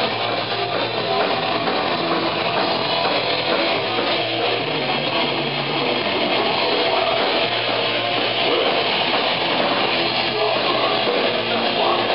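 Thrash metal band playing live: distorted electric guitars and a drum kit going steadily without a break.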